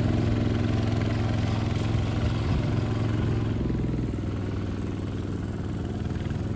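Kubota bulldozer's engine running steadily, easing off slightly about three and a half seconds in.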